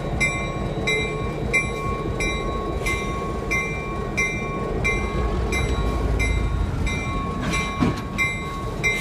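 A locomotive bell rings steadily at a little under two strokes a second over the low rumble of an EMD SD-9 diesel locomotive. The engine rumble swells a little past the middle.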